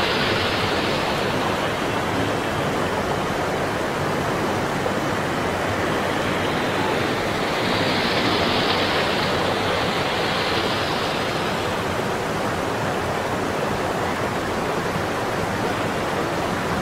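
Floodwater rushing in a steady stream over a flooded road. The sound grows brighter for a few seconds about eight seconds in, as the churning water close by comes into view.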